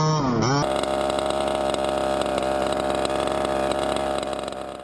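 Two-stroke gasoline engine of an HPI Baja 5T RC truck revving, its pitch rising and falling, then after an abrupt cut about half a second in, running steadily at idle close to the onboard microphone. The sound fades out at the end.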